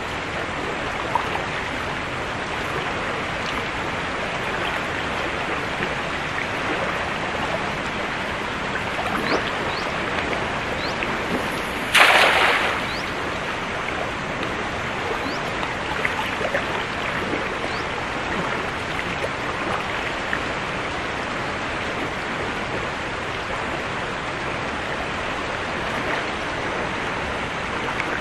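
Flooded river's fast current rushing steadily. About twelve seconds in, a thrown cast net hits the water with one loud splash that dies away within a second.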